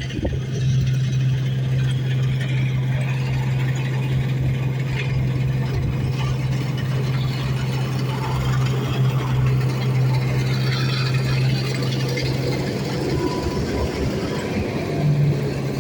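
Large farm machine's engine running steadily under harvest work, a constant low drone with mechanical clatter over it, rising briefly near the end.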